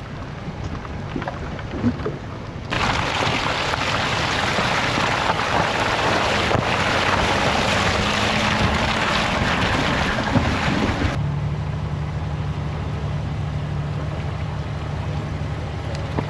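A 4x4 truck's engine running at a low, steady drone, heard from inside the cab on a rough trail. About three seconds in, a loud even rushing noise cuts in abruptly and stops just as suddenly about eleven seconds in.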